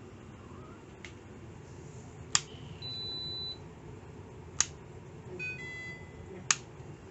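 Microwave oven being set: sharp clicks of its door and keypad, with electronic beeps, one held for most of a second near the middle and a short run of beeps near the end.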